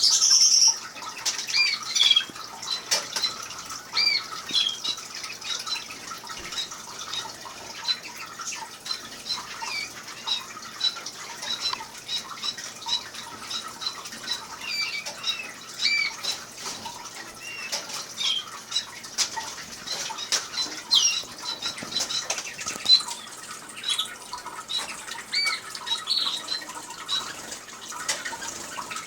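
Canaries and finches chirping and calling, many short repeated notes overlapping, over the steady trickle of a water fountain.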